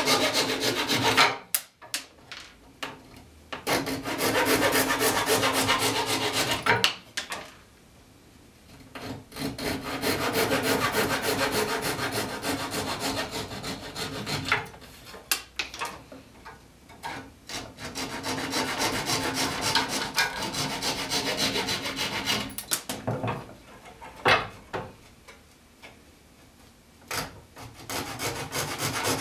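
An old Japanese pull saw with broken teeth cutting through the ends of wooden Windsor chair spindles in fast, even strokes. The sawing comes in about five runs of a few seconds each, with short pauses and a few knocks between them as the next spindle is taken.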